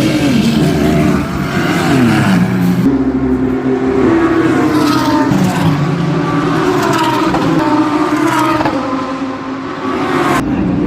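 Several racing car engines running loud, their pitch rising and falling as the cars rev and change gear.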